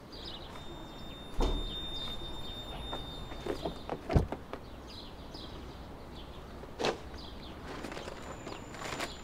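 Car doors of an SUV opening and shutting, with a low thud just after four seconds as the loudest sound and a sharp click near seven seconds. Birds chirp through the quiet background.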